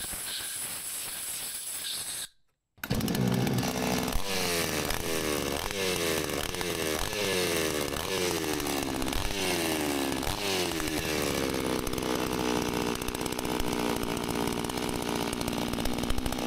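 Small two-stroke chainsaw engine running. After a short stretch of hiss and a brief break, the throttle is blipped repeatedly, the revs rising and falling about once a second, then held steady at high revs. The saw is running and sounding pretty good after a blown ignition coil and broken coil mount were dealt with.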